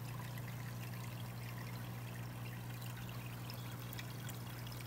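Aquarium filter water trickling and splashing steadily into the tank, over a steady low hum.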